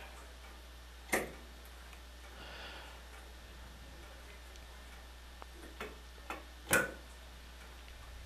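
Two sharp knocks about five and a half seconds apart, with a couple of fainter clicks just before the second, as a wall-hung bathroom sink and its chrome support legs are handled and set in place. A low steady hum runs underneath.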